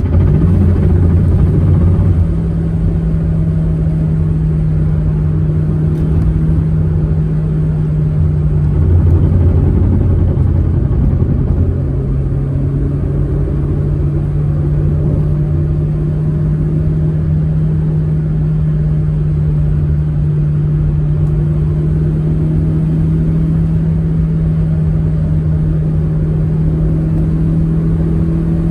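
Proton Saga MC2's four-cylinder engine running at a steady cruise, its hum stepping up in pitch right at the start and then holding even, over a constant low road rumble.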